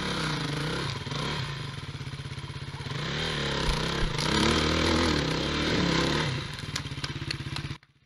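Enduro dirt bike engine revving up and down in bursts as it climbs over rocks, with a few sharp knocks near the end; the sound cuts off suddenly just before the end.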